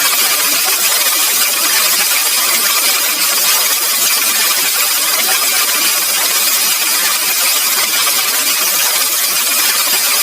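Loud, steady, harsh electronic hiss with a faint high whine inside it, unchanging throughout: an audio effect processed until it is mostly bright noise.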